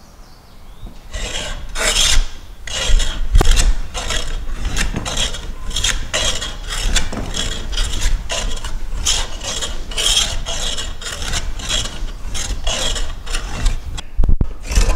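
Metal jack plane (general-purpose bench plane) being pushed end to end along a timber board, its blade cutting shavings in repeated rasping strokes, about two a second, as the surface is trued up. The strokes stop briefly near the end.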